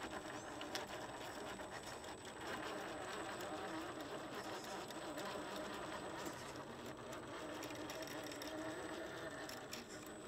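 Axial SCX10 III JT Gladiator RC crawler's electric motor and geared drivetrain whining as it crawls slowly up a steep rock, the pitch wavering with the load. A few light clicks come in the second half.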